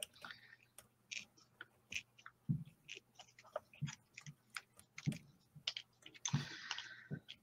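Black pen nibs moving on paper in short, irregular strokes, heard as scratchy clicks, with one longer scratchy stroke about six seconds in.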